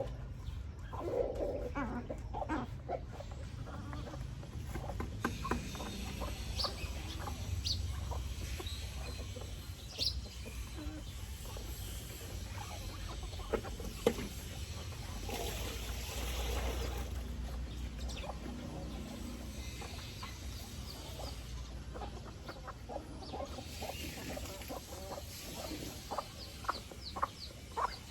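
A flock of chickens clucking, with many short scattered clicks and taps among the calls.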